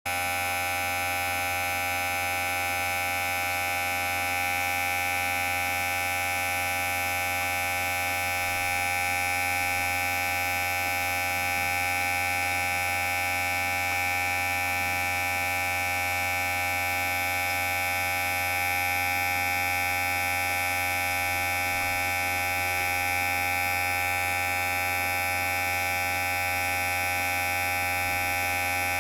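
Electric hair clipper running with a steady, even buzz that has a strong low hum.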